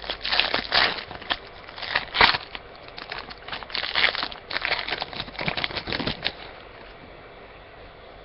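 Crinkling and rustling of a hockey trading-card pack wrapper being opened and handled, in a quick irregular run that stops about six seconds in.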